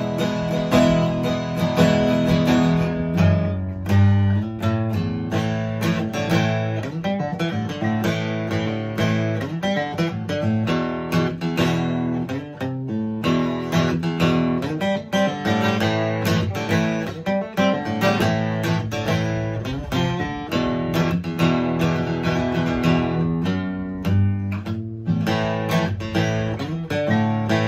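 Aria 9460 Hummingbird-copy acoustic guitar being played: a continuous run of strummed chords.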